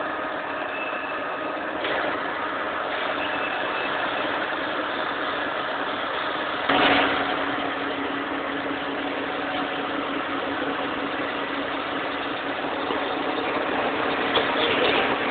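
Machine tools running in a machine shop: a steady mechanical hum with a few held tones over a wash of noise. About seven seconds in there is a brief, louder noise, after which a steady low tone holds.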